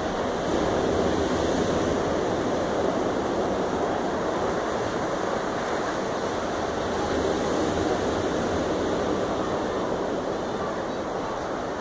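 Distant roar of an Atlas V rocket climbing after launch: a steady rushing rumble that swells slightly about a second in and again around seven to eight seconds.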